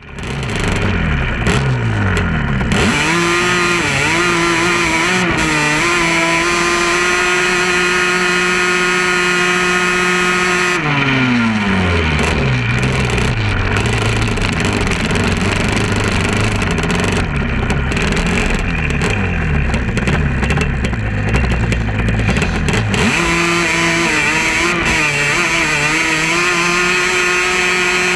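Off-road vehicle engine running hard in sand, holding a high steady note, easing off about eleven seconds in with a falling pitch, running lower and uneven for a while, then revving back up to a steady high note about twenty-three seconds in.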